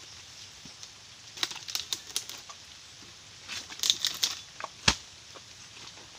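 A harvesting chisel (dodos) on a long pole cutting into the base of oil palm fronds, giving clusters of sharp crackling snaps about a second and a half in and again about four seconds in. A single sharp knock about five seconds in is the loudest sound.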